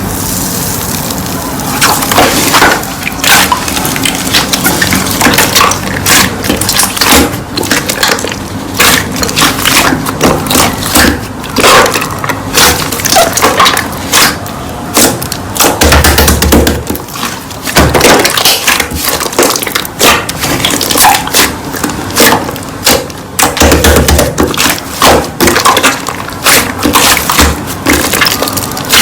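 Slime being squeezed and pressed by hand, giving a dense, irregular run of sharp crackling pops.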